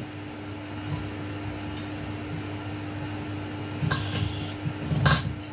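A kitchen knife slicing carrots on a cutting board: a few sharp knocks about four and five seconds in, over a steady low hum.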